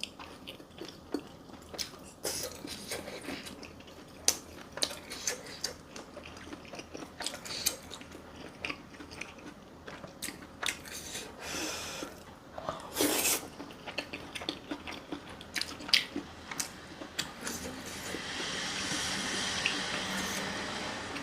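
Close-miked mukbang eating sounds: a person biting and chewing food, with many short wet smacks and crunches. A steadier hissing rustle comes in for the last few seconds.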